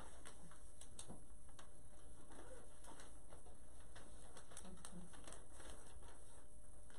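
Quiet room tone with a steady low hum and many faint scattered taps and rustles from a person moving and signing, hands and clothing brushing and meeting.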